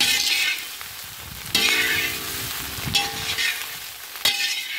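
Whole small bitter gourds sizzling in hot sesame oil in a wok, stirred with a metal ladle. About four sweeps, one every second and a half or so, each brings a surge of louder sizzling. The gourds are cooked through and ready to come out of the oil.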